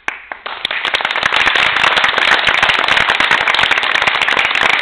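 Audience applauding: a loud, dense clatter of clapping that breaks out suddenly, fills in within about half a second and begins to thin out near the end.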